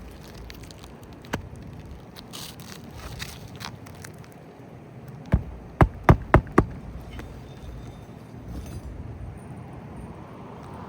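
Hammer driving a roofing nail into an asphalt shingle: five quick sharp strikes just past the middle, after a single knock about a second in and some light scraping.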